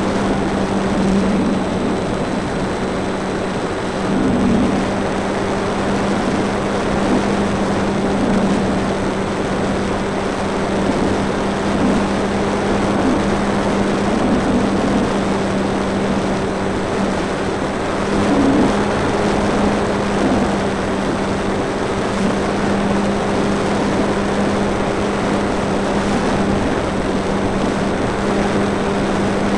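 Electric motor and propeller of a Multiplex FunCub RC plane in flight, heard from a camera on board: a steady hum at an even pitch over a broad rushing noise.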